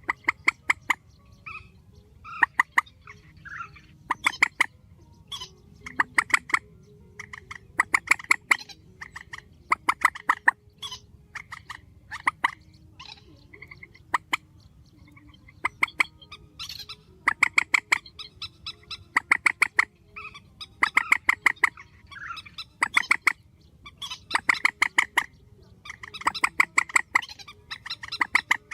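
Purple swamphen calling loudly: bursts of rapid, harsh cackling notes repeated every second or two, with softer calls in between.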